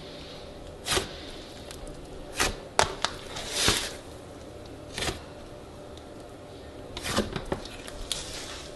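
Fingers pressing into a thick slab of slime, squeezing out trapped air in sharp pops and crackles at irregular intervals, the longest a little over three seconds in.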